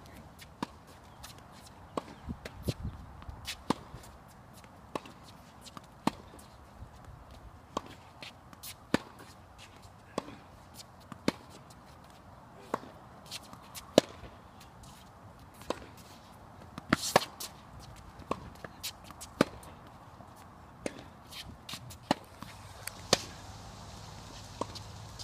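Tennis ball struck back and forth with rackets and bouncing on the court: a sharp pop every second or so, with a quick cluster of hits about two-thirds of the way through.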